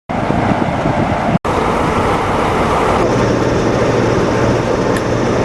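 Class 47 diesel locomotive's Sulzer engine running at idle, a loud steady rumble and hiss. The sound drops out for an instant about one and a half seconds in, and a steady low hum joins about three seconds in.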